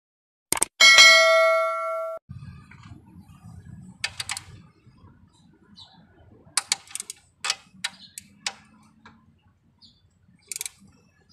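A click, then a bright bell-like ding that rings for about a second and a half: the subscribe-button sound effect. After it comes a faint low hum with scattered sharp metallic clicks and clinks as a torque wrench is worked on the camshaft bearing cap bolts.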